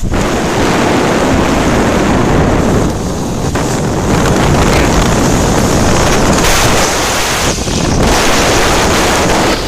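Severe thunderstorm wind blowing hard and buffeting the microphone, easing a little a few seconds in and again near the end.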